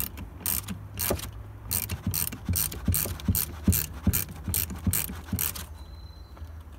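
Ratchet spanner clicking about twice a second as it runs the brass filler screw down into the convertible roof's hydraulic pump. The clicks stop about five and a half seconds in.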